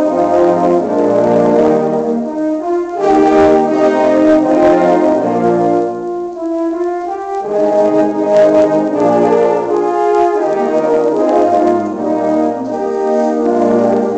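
French horn ensemble playing held, multi-part chords in phrases, with brief breathing gaps between phrases.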